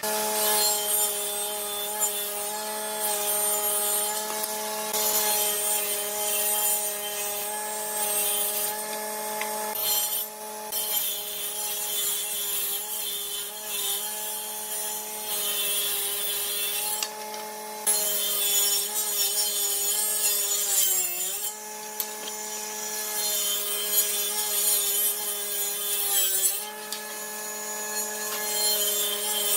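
An electric power tool running steadily with a constant motor hum while it cuts or grinds wood, with a gritty hiss that swells and fades as the work goes on. Its pitch sags briefly about two-thirds of the way through, as the motor takes a load.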